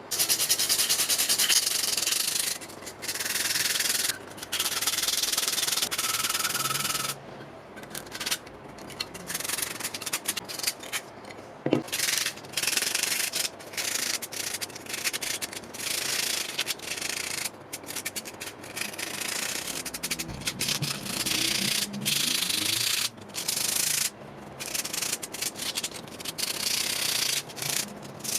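Abrasive work on the steel body of a rusty Tonka toy truck: a harsh hiss that starts and stops repeatedly, in bursts from a fraction of a second to a few seconds long, with a sharp click about twelve seconds in.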